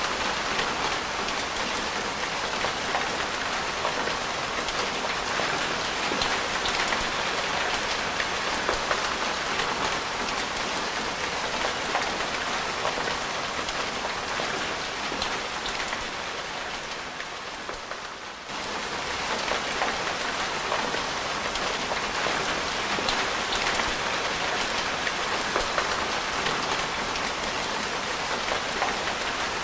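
Steady rain, with individual drops ticking against a surface. A little past halfway it dies down for a couple of seconds, then comes back suddenly at full strength.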